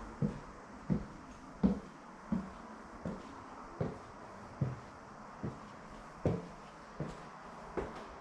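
Footsteps walking across an indoor floor at an even pace, about eleven steps.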